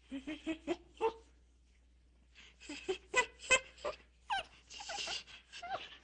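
Animal calls: a series of short calls bending up and down in pitch, with sharp clicks among them, in a cluster about the first second and another through the second half.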